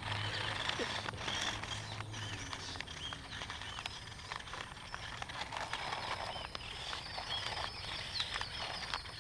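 Outdoor ambience of small birds chirping on and off, with scattered light clicks and a faint low hum during the first two seconds.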